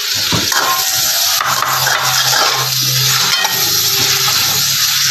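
Raw wild pork sizzling in hot oil in a stainless-steel wok as it is tipped in and stirred, with a metal spatula scraping against the pan a few times.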